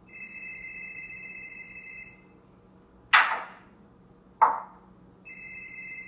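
African grey parrot imitating a telephone ring: a steady, high electronic-sounding ring lasting about two seconds. It is followed by two loud, short, harsh sounds about a second apart, and the ring starts again near the end.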